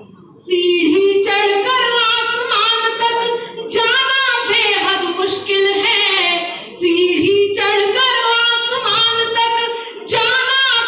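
A woman singing a Hindi poem into a microphone without accompaniment, in held, melodic phrases with short breaks for breath between them.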